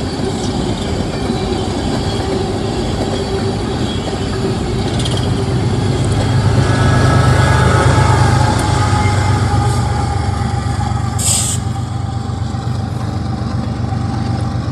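Freight train of empty coal hopper cars rolling past, a steady clattering rumble. A deeper rumble swells in the middle with a faint wheel whine, and a short sharp hiss sounds near the end.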